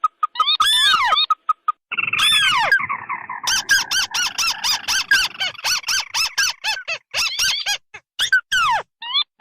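Crakes calling in a bird-lure recording: repeated sharp, arched call notes, with a fast run of calls over a rolling trill from about two seconds in until about seven seconds in.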